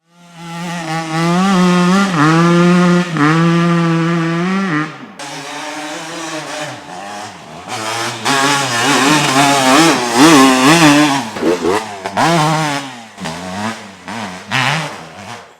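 Kawasaki KX250 two-stroke single-cylinder dirt bike engine revving hard. It holds high, steady revs for about five seconds, then after a sudden break the revs rise and fall over and over as the bike is ridden.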